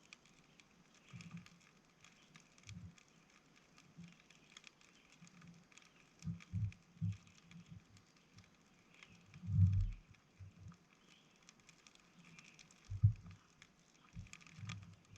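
Small wood campfire on a birch-bark base crackling and popping faintly with many small ticks as the sticks catch. Occasional low dull thumps, loudest about halfway through and again near the end.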